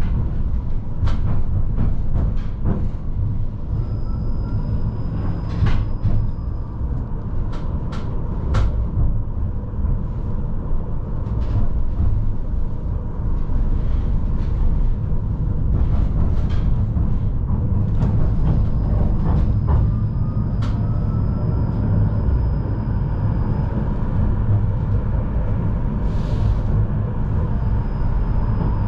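Tram running along the track, heard from inside the car: a steady low rumble with frequent sharp clacks as the wheels pass over rail joints and switches. A thin high squeal comes and goes three times, and a faint rising whine sounds near the middle.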